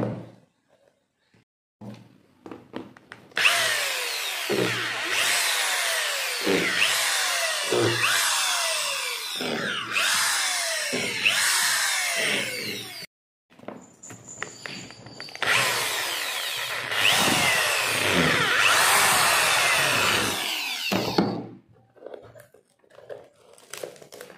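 Handheld electric drill running with its bit in the rubber lug sole of a shoe, in two long runs with a brief break between, its pitch falling again and again as it bites. Faint handling clicks near the end.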